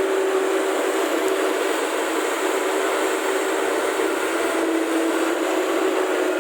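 Steady mechanical drone with a constant hum-like tone and no sudden changes, like heavy machinery running.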